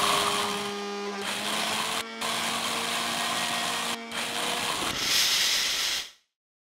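A small electric motor whirring steadily, cut by two brief breaks about two and four seconds in, then stopping abruptly near the end.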